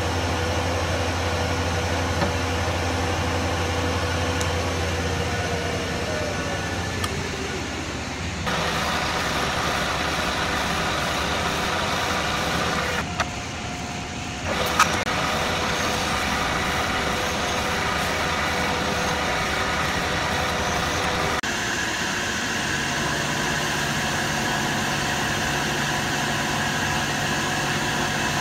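Tormach PCNC benchtop CNC mill cutting aluminium, with the spindle running while drilling and milling. The steady machine noise changes character abruptly about a third of the way in and again about three quarters of the way in, with a short quieter dip around the middle.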